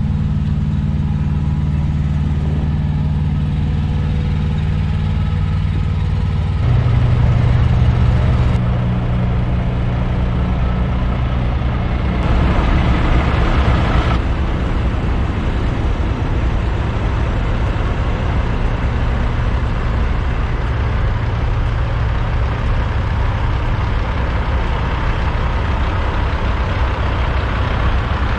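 Diesel semi-truck engines idling steadily, with a louder stretch about seven seconds in and a brief rush of noise around twelve seconds in.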